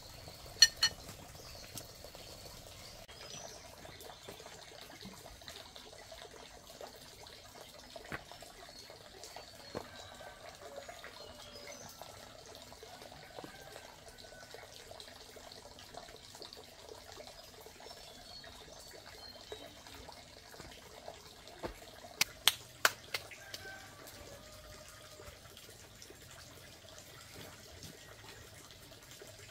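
Faint steady running-water sound with scattered sharp clicks and knocks, the loudest a pair near the start and a quick run of several about three-quarters of the way through.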